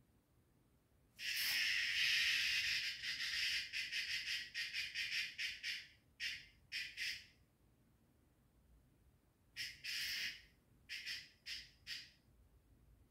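High-pitched distress squeals of a small prey animal caught by a cat. A rapid, pulsing run lasts about five seconds, followed by a few short separate cries. Another brief burst and more short cries come near the end.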